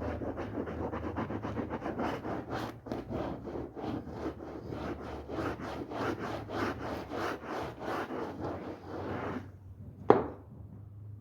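Brush scrubbing a rug in quick back-and-forth strokes, about three a second, then stopping. A single sharp knock follows near the end.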